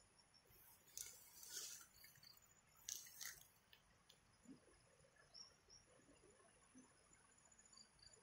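Faint rustling and crackling of fern undergrowth being brushed or handled, loudest in two short bursts about one and three seconds in, with a few softer scattered crackles later and faint high chirps in the background.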